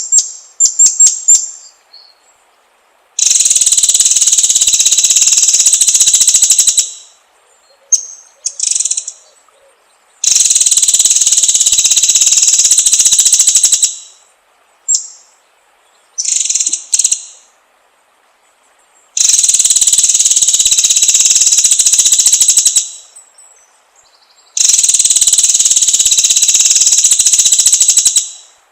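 White-rumped shama (murai batu) singing: four long bursts of very rapid, rattling repeated high notes, each lasting a few seconds, with short high chirped phrases and brief pauses between them.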